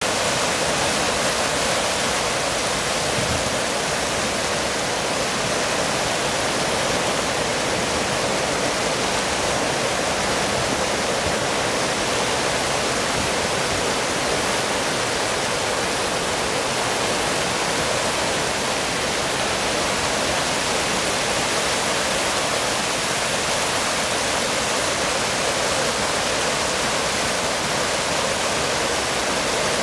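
Canal water spilling over a long concrete weir in a continuous sheet and churning into white water below: a steady rush.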